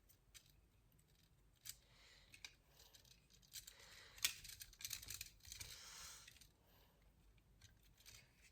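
Faint clicking and rustling of a plastic Blokees Optimus Prime model kit being handled and posed, its joints clicking as the limbs are moved, with a sharper click about four seconds in.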